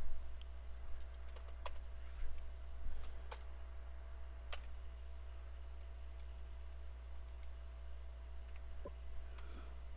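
Scattered clicks of a computer mouse and keyboard, a few sharp ones spaced irregularly, over a steady low electrical hum.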